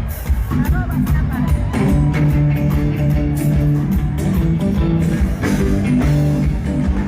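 A band playing rock-style music: guitar over bass and a drum kit, at a steady loud level.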